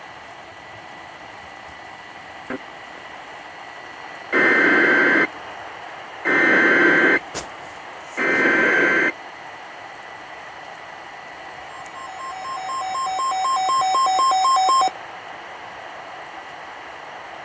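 Simulated NOAA Weather Radio emergency alert over a steady radio static hiss: three short, loud, screechy data bursts of an Emergency Alert System header about a second apart, then a rapidly beeping two-tone alert signal that swells for about three seconds and cuts off suddenly. The sequence marks the start of a new weather warning.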